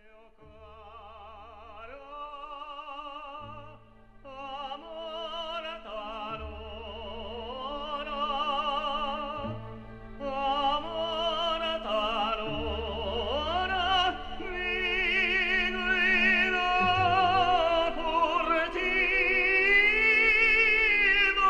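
Background music: operatic singing with a wide vibrato over orchestral accompaniment, swelling steadily louder.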